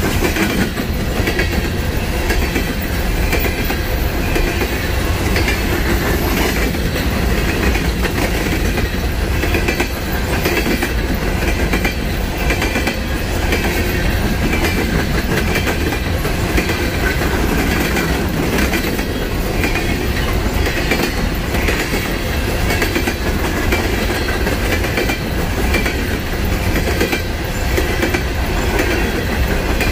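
Freight train cars rolling past: a steady, loud noise of steel wheels on rail, with irregular clicks as the wheels cross rail joints.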